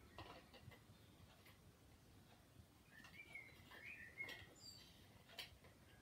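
Near silence, with a few faint light clicks of a wheel nut and wrench being worked onto an RC truck's wheel, and a faint wavering chirp in the middle.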